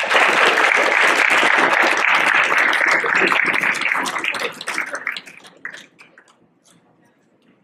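Audience applause, a dense clapping that dies away after about five seconds into a few scattered claps.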